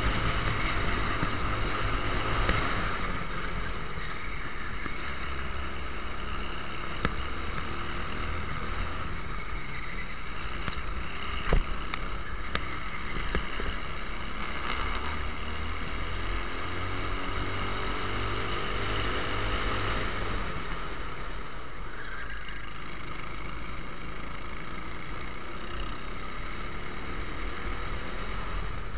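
Onboard sound of a twin-engined Prokart racing kart at race pace, the engines' revs rising and falling through the corners, with wind noise on the microphone. A short sharp knock about 11.5 seconds in.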